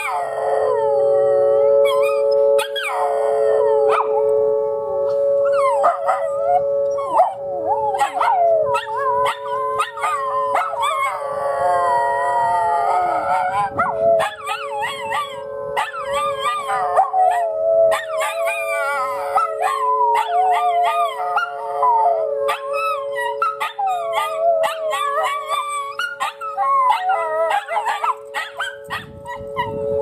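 Miniature schnauzers howling along with a tornado siren. The dogs' wavering howls rise and fall over the siren's steady chord of two held tones.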